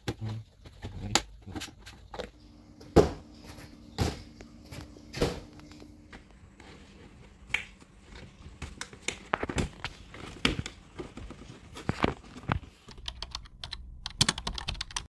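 Hard plastic panels of a foldable clear shoe box clicking and knocking as they are handled and fitted together, with a few sharper clacks and a quick flurry of clicks near the end.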